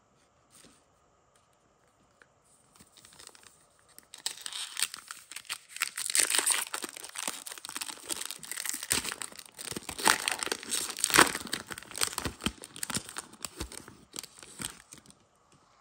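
Foil trading-card pack wrapper being torn open by hand, crinkling and tearing. It starts faintly about two and a half seconds in, goes on loudly for about ten seconds, and fades out near the end.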